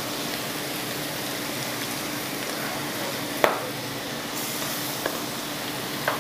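Thin spinach and gram-flour batter deep-frying in hot oil kept on high heat, a steady hissing sizzle. A single sharp tap sounds about three and a half seconds in.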